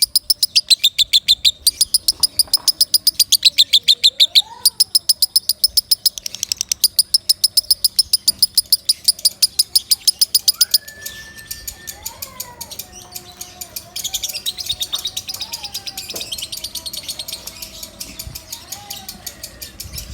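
Lovebird chattering loudly in a fast run of sharp, high chirps, which breaks off about eleven seconds in to a softer, looser chatter. Other birds' whistled calls sound underneath.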